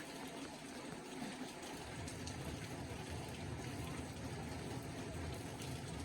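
Heavy rain falling steadily, an even rushing noise with no breaks.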